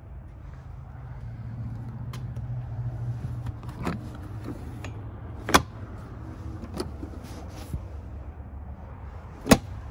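Plastic clicks and knocks from the RZR's dash storage compartment lid and latch being opened and handled, two of them much louder, about five and a half and nine and a half seconds in, over a low steady rumble.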